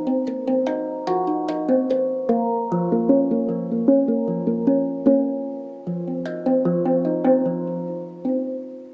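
Harmonic Sound handpan tuned to B-flat minor, played by hand: a flowing run of struck notes that ring on and overlap, several strikes a second.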